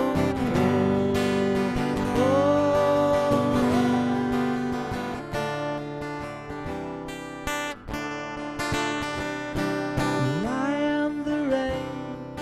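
Strummed acoustic guitar playing the song's instrumental break, with long wordless sung 'whoa' notes that slide up into held pitches a few times over it.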